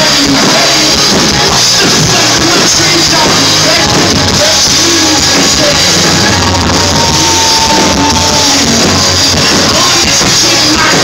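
Live rock band playing loudly, recorded on a phone in a concert hall, the sound dense and distorted; a held note sounds from about six to eight and a half seconds in.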